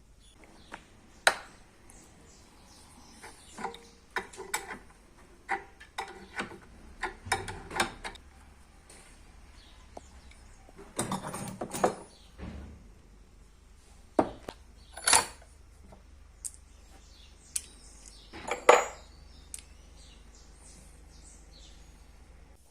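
Metal tools and parts being handled, clinking and knocking at irregular intervals, with a short rattling scrape about halfway through and the loudest knock near the end.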